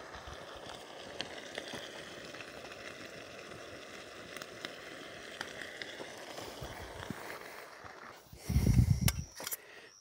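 Small wood fire burning under a wire mesh grill, a steady hiss with scattered light crackles. Near the end a loud, muffled low rumble lasting under a second.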